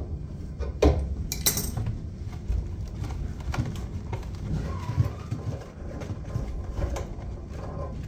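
A spanner working on a heat pump's pipe filter cap to open it, making metal clicks and clinks. Two sharp clicks come about a second in, then scattered small knocks over low handling noise.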